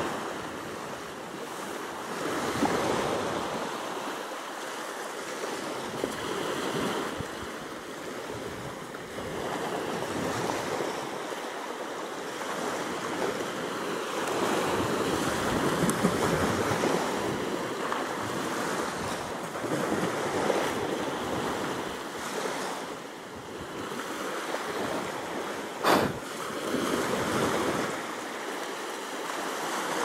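Small sea waves washing onto a sandy beach, the surf swelling and falling back every few seconds. One sharp click stands out near the end.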